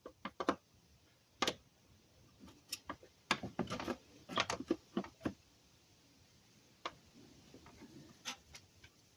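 Scattered sharp clicks and light knocks in small irregular clusters, from hand tools and screws being handled while the plastic underbody panel is fastened back on.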